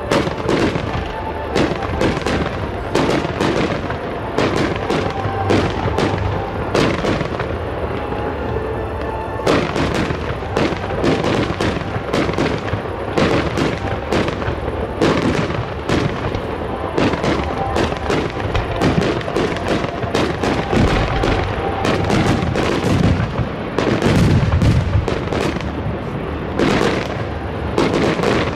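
Fireworks display: many aerial shells bursting in quick succession, several bangs a second overlapping over a continuous low rumble.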